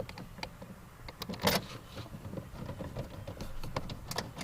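Tool clicking and scraping as an 8 mm screw is driven in to fasten the door trim panel, with a louder scrape about one and a half seconds in.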